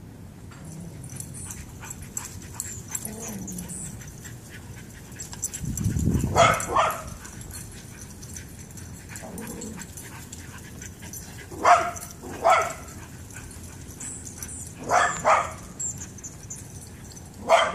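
A dog barking during excited chasing play with another dog: a few short barks, mostly in pairs, starting about six seconds in.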